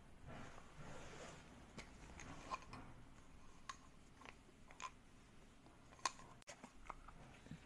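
Faint handling noise of a plastic dog poop bag dispenser and its metal carabiner clip being picked up and turned in the hand: a soft rustle at first, then scattered sharp little clicks.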